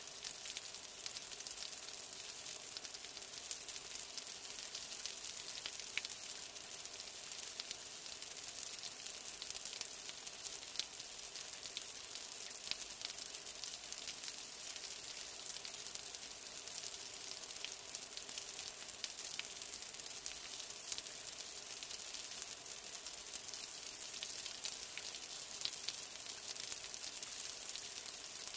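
Steady rain falling: an even high hiss scattered with many small ticks of individual drops.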